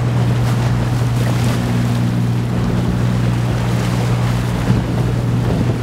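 Steady low engine drone of the container ship ORIENT SPIRIT under way, over the wash of waves and wind on the microphone, with one brief knock near the end.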